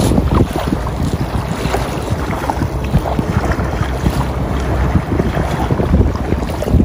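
Wind buffeting the phone's microphone: a loud, uneven low rumble that rises and falls in gusts.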